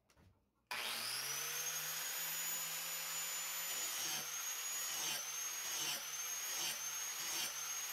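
Angle grinder mounted in an All American blade sharpener jig starts up just under a second in, its whine rising to speed, then runs steadily while grinding the dull, nicked edge of a mulching mower blade.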